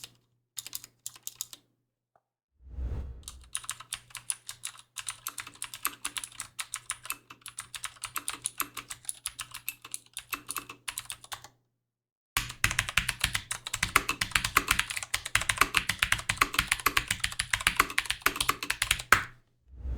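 Leopold FC750R PD mechanical keyboard with clicky Cherry MX Blue switches being typed on. A few separate key presses come first, then steady typing with a light touch, then after a short pause faster, harder typing that is noticeably louder.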